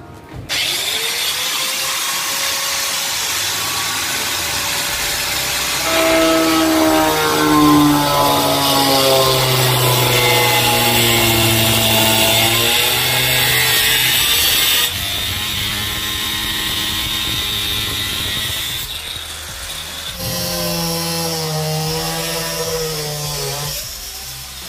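Handheld angle grinder with a cutting disc, running and cutting through a laminated wooden table top. Its whine sinks in pitch twice, first about six seconds in and again near the end.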